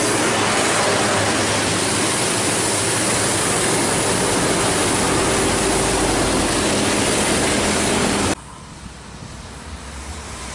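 Steady loud hiss of buses running on a wet, rain-soaked road, with the low hum of their engines underneath. About eight seconds in it cuts off abruptly to a much quieter engine sound that slowly grows louder.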